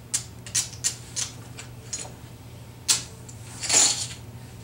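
Poker chips clicking together as players handle them at the table: a run of sharp clicks, one louder click about three seconds in, then a short clatter near the end.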